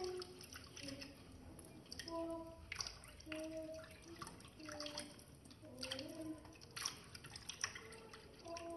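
Tap water running in a thin stream, dripping and splashing into a sink as a baby monkey's hands are rinsed under it.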